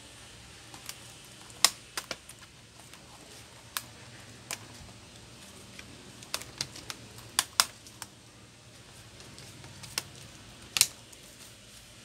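Irregular clicks and taps of keys being pressed on a Lenovo ThinkPad T430 laptop keyboard, about a dozen or more, with louder clacks a couple of seconds in and near the end.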